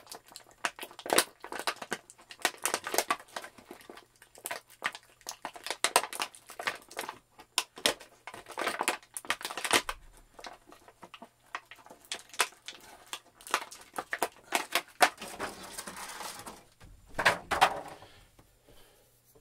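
Stiff plastic action-figure packaging crinkling and clicking in irregular bursts as it is handled and pried open to free small accessories.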